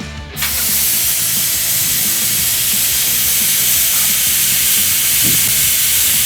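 Compressed air hissing loudly and steadily, cutting in about half a second in.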